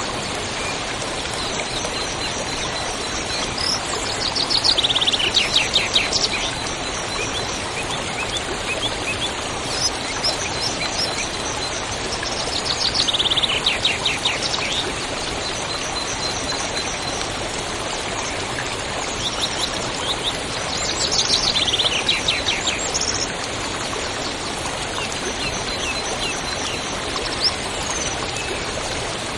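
River water rushing steadily, with a songbird singing three times, each song a quick run of notes falling in pitch. A faint high repeated chirp runs underneath.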